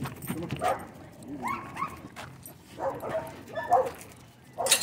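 Dogs barking and yipping in several short bursts.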